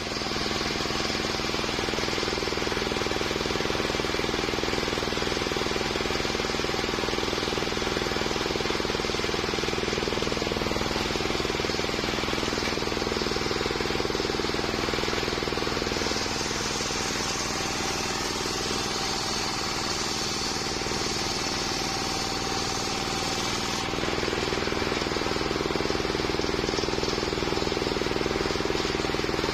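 Homemade circular sawmill running steadily while sawing a waru log into boards, its motor and blade making a continuous mechanical drone. The tone shifts a little past halfway and again about four-fifths of the way through.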